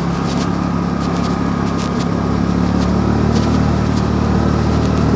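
Honda Dio scooter's small single-cylinder engine running steadily while the scooter is ridden along the road.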